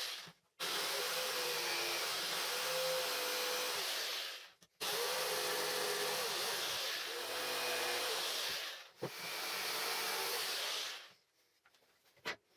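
Power tool running under load with a hissing rush and a wavering whine, in several stretches of a few seconds that stop and start abruptly; it falls silent near the end, leaving a few faint clicks.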